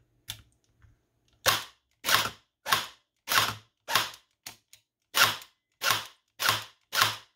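Airsoft V3 AEG gearbox cycling shot by shot in semi-auto through its microswitch trigger: about ten separate sharp mechanical cycles, roughly one every 0.6 s, after a couple of weak short stutters in the first second.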